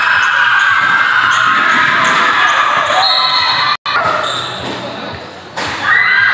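Basketball game sound: spectators shouting and cheering while the ball bounces on the court. The sound drops out for an instant just before four seconds in, stays quieter for over a second, then the shouting picks up again near the end.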